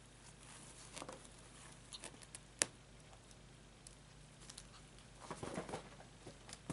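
Faint scuffling and pattering of a kitten tumbling and pouncing on carpet while it plays with a feather wand toy, with one sharp click about two and a half seconds in and a short burst of rustling near the end.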